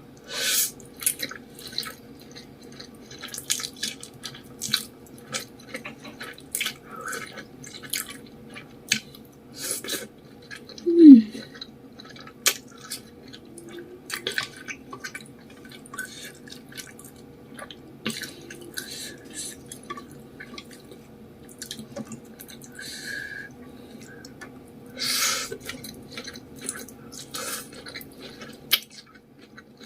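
Close-miked eating: wet, irregular chewing, smacking and slurping of spicy instant noodles with fish balls and vegetables. About eleven seconds in, one brief loud sound falls in pitch.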